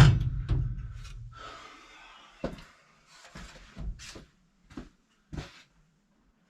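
A loud bang with a ringing decay over a couple of seconds, then a series of lighter knocks and clunks: parts being handled and knocked about during work on sheet-metal ductwork and zone dampers.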